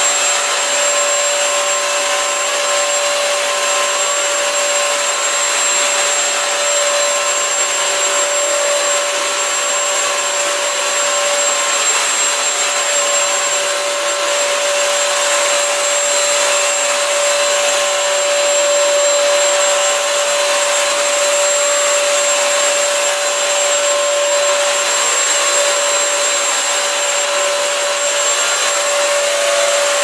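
Bissell CrossWave wet-dry multi-surface vacuum running while being pushed back and forth mopping a tile floor: a steady, even motor whine of constant pitch over a rushing suction hiss.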